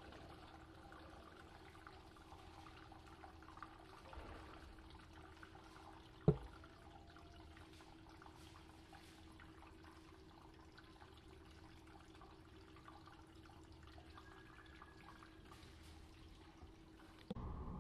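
Faint background noise with a steady low hum, broken by one sharp click about six seconds in.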